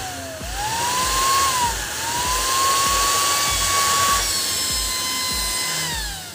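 Small 12-volt DC blower-type cooling fan whining as its motor spins. The pitch rises as it speeds up and falls as it slows down, several times over: a quick dip about half a second in, another just before two seconds, a steady high stretch in the middle, then a slow and then quick run-down near the end.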